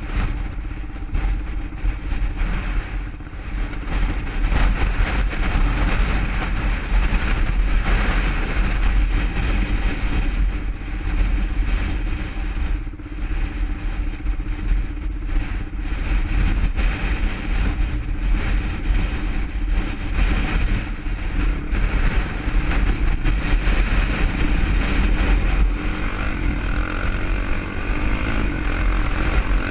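Single-cylinder four-stroke ATV engine running continuously while riding. The engine note rises and falls with the throttle, dipping briefly about halfway through.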